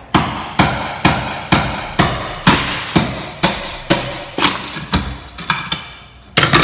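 Framing hammer striking a steel chisel wedged under ceramic floor tile, about two sharp blows a second, with music playing along.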